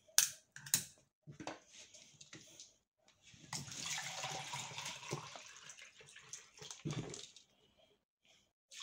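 Water poured from a large plastic bottle into a plastic measuring jug, a steady pour lasting about four seconds that starts a few seconds in. Before it come a few sharp clicks from the plastic bottle being handled.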